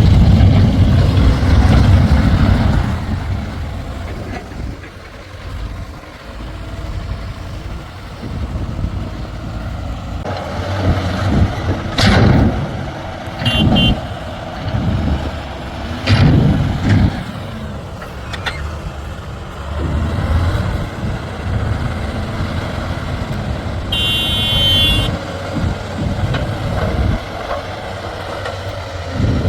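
Diesel engine of a JCB backhoe loader working, loudest in the first few seconds and then steadier. A couple of sharp knocks come midway, and a brief high-pitched tone sounds about 24 seconds in.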